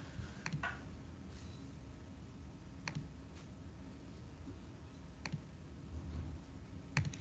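A handful of sharp, single computer mouse clicks a second or two apart, two of them in quick succession about half a second in, over a faint low room hum.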